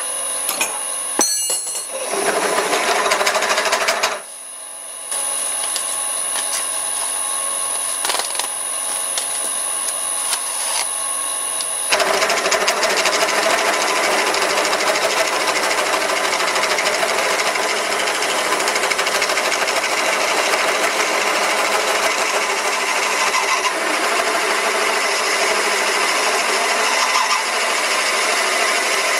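Vintage Karger metal lathe running at about 400 RPM while a 15.5 mm twist drill in its chuck bores into a block of steel, a steady machine noise of the spindle mixed with the drill cutting. The noise dips briefly about four seconds in, and about twelve seconds in it steps up to a louder, rougher cutting noise.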